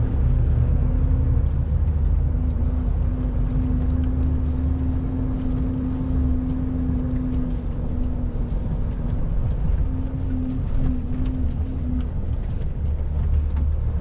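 Truck engine and drivetrain running, heard inside the cab while driving: a low rumble with a steady hum that fades out and returns a few times. Faint knocks and rattles run through it as the truck rolls over a wet, potholed road.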